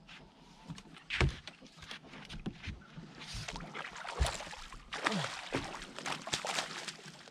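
A hooked smallmouth bass thrashing and splashing at the surface as it is scooped into a landing net, with several sharp knocks. The splashing is heaviest in the second half.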